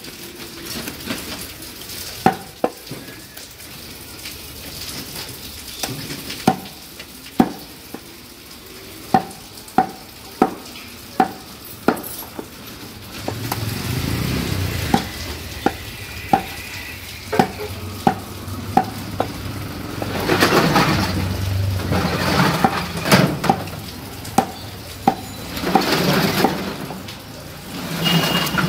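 A heavy butcher's cleaver chopping beef on a round wooden chopping block: sharp knocks of the blade into the wood, irregular, about one or two a second. About halfway through, a low rumble and louder background noise come in under the chopping.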